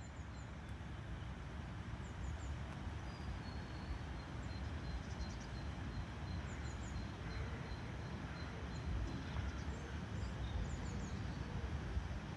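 Birds chirping in short high notes over a steady low rumbling background noise.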